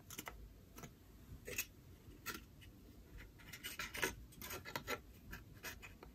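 Cardboard tube and scissors being handled: faint, irregular light scrapes and clicks, busiest in the second half, with one sharper click about four seconds in.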